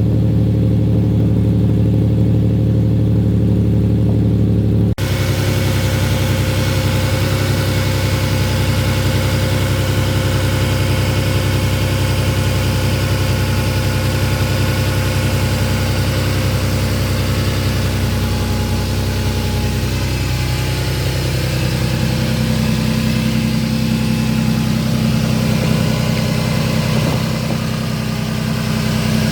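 Toyota 3.4 L 5VZ V6 with TRD headers and a 2.5-inch Magnaflow-resonator side-exit exhaust, idling steadily while warming up after a cold start. There is an abrupt break about five seconds in, and the tone shifts slightly lower around twenty seconds in.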